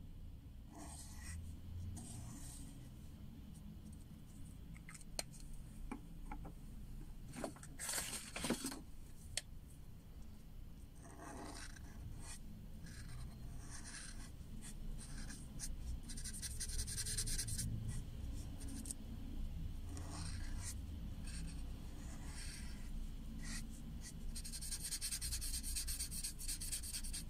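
Felt-tip markers scratching on paper: outline strokes, then quick back-and-forth colouring strokes filling in shapes, most dense about two thirds of the way in and near the end. A few sharp clicks come about a third of the way in.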